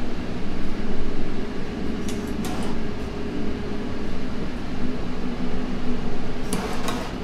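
Steady hum of kitchen ventilation, with two brief clusters of light clicks and clinks, one about two seconds in and one near the end.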